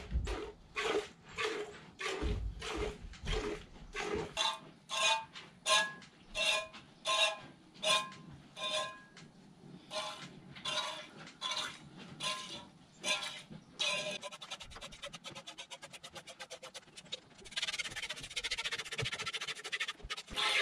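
Milk squirting into a stainless steel pail as a mini Jersey cow is milked by hand, about two squirts a second, each one ringing the metal pail. In the last few seconds the squirts come quicker and run together into a steady hiss.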